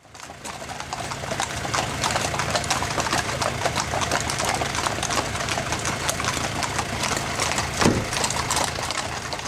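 Horses' hooves clip-clopping, many overlapping steps, over a vehicle engine idling steadily underneath, with one louder knock about eight seconds in.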